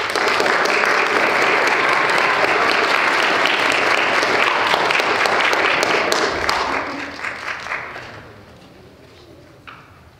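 Audience applauding: it starts at once, holds steady for about six seconds, then thins to scattered claps and dies away about eight seconds in.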